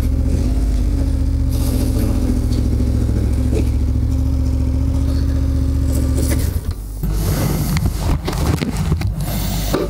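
KTM 1290 Super Adventure's V-twin engine running at a steady, even note. About six and a half seconds in, the engine sound stops and gives way to irregular knocks and scrapes.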